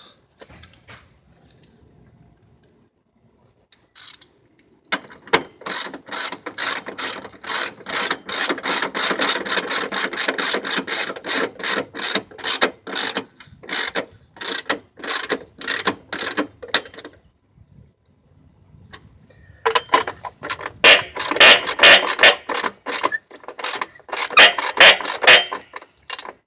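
Hand ratchet wrench clicking quickly as a bolt is turned, in two long runs with a short pause between them.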